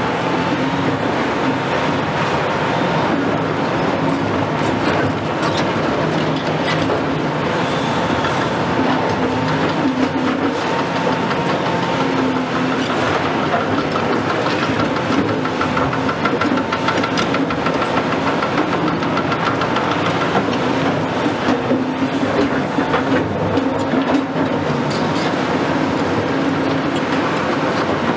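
Caterpillar 352F XE crawler excavator travelling slowly on its tracks: the 12.5-litre Cat C13 ACERT diesel engine runs steadily under the clatter of the steel track chains. A thin high tone joins in about halfway through.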